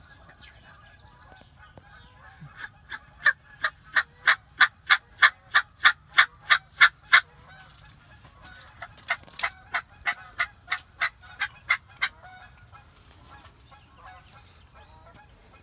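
Turkey yelping in two long runs of short, evenly spaced notes at about three a second. The first run has about fifteen loud yelps, starting a little under three seconds in. A shorter run of about nine follows after a pause.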